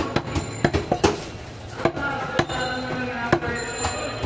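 A butcher's cleaver chopping goat meat on a wooden chopping block: about ten sharp, irregularly spaced knocks.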